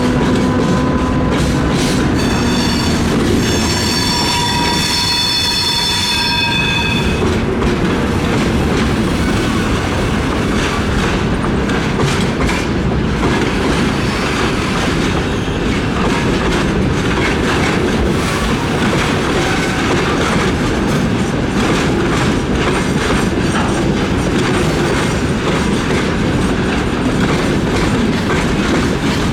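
Electric-locomotive-hauled train passing close by, a loud steady rumble of wagons with wheels clattering over the rail joints. A high whining wheel squeal rises over it for a few seconds near the start.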